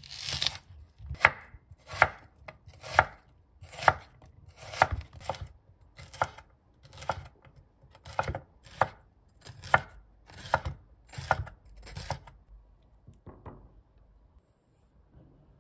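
Chef's knife slicing vegetables, red bell pepper among them, into strips on a wooden cutting board: about fifteen even cuts, roughly one a second, each a sharp knock of the blade on the board. The cuts grow fainter and stop about thirteen seconds in.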